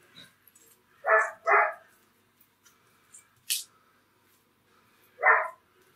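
Pet dogs barking: two quick barks about a second in and one more near the end, with a brief sharp click about halfway between.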